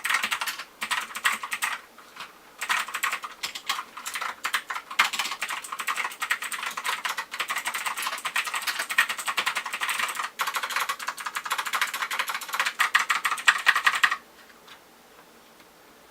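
Rapid, continuous typing on an iGuju M1KB mechanical keyboard with double-shot keycaps, keys clicking in quick succession, stopping suddenly near the end.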